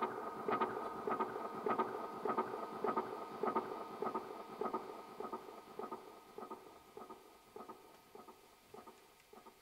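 Band music dying away: a repeated note pulsing a little under twice a second over a held chord, fading out steadily.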